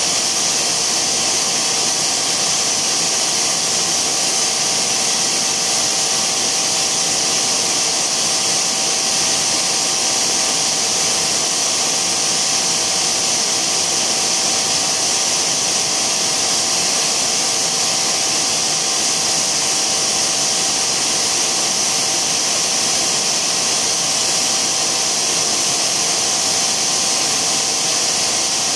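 Tongda TDW 350D extrusion blow moulding machine running: a steady hiss with a constant mid-pitched whine from its motors and hydraulics.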